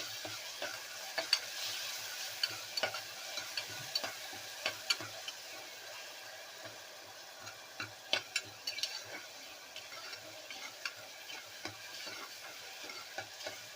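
Onions, green chillies and a freshly added chilli-garlic-ginger paste sizzling in ghee and oil in a small pressure cooker, with a spoon scraping and clicking against the pot as it is stirred. A steady frying hiss runs under irregular sharp taps from the spoon.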